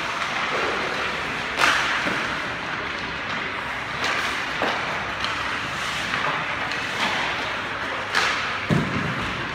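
Hockey pucks being shot during warm-up, hitting a goalie's pads, stick and the boards: about half a dozen sharp cracks and thuds spaced a second or more apart, the loudest about one and a half seconds in and near the end, over the steady hum of an ice rink.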